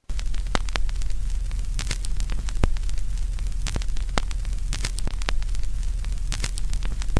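Vinyl record surface noise: steady hiss and scattered crackles over a low rumble, cutting in and out abruptly.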